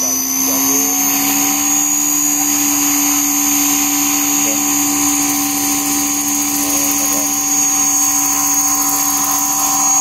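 Large electric radio-controlled model Lama helicopter running: a steady high electric-motor whine with the spinning rotor, its pitch rising a little in the first two seconds as the rotor spools up, then holding steady.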